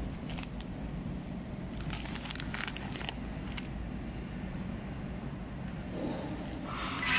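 Conveyor-type UV food sterilizer machine running: a steady low mechanical hum, with scattered light clicks and rattles.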